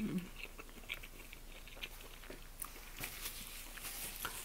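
Close-miked chewing: soft, irregular wet mouth clicks and smacks of a person eating.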